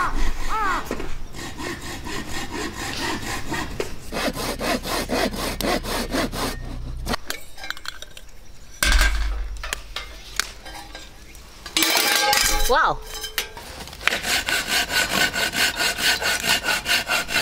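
Cooking oil glugging out of a plastic bottle into a stainless steel pot, in regular pulses over the last few seconds. Behind it, through the whole stretch, runs a steady series of rasping strokes.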